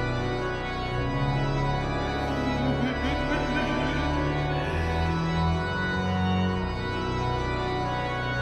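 Background music with sustained organ chords over a held bass line.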